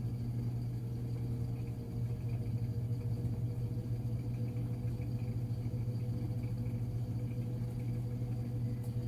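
Samsung washing machine in its spin cycle with an empty drum, giving a steady humming drone with a fast, even pulse as the drum spins up.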